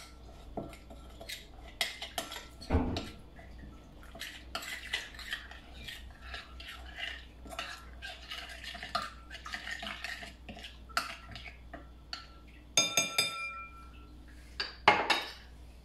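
Spice-and-oil marinade being mixed by hand in a ceramic bowl, with scraping and clicking against the bowl. A brief ringing clink comes near the end.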